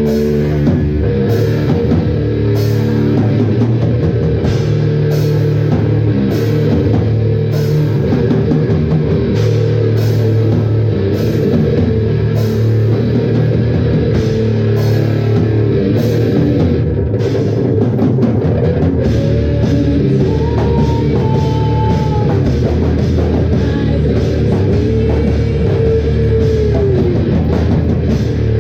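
Live rock band playing an instrumental passage: guitar and drum kit, with cymbal hits about every second through the first part.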